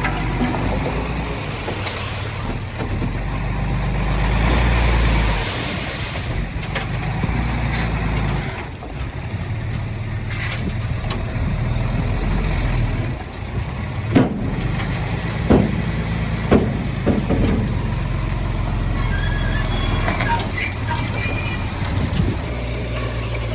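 Heavy diesel earthmoving machinery running steadily, with a few sharp metallic knocks a little past the middle.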